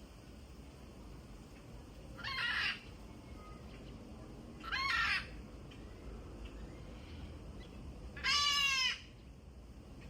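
Blue-throated macaw giving three harsh, squawking calls, each about half a second long and a few seconds apart.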